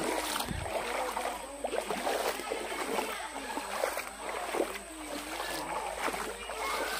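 Shallow river water running and splashing over rocks, a steady rushing hiss, with the voices of several people talking and calling in the background.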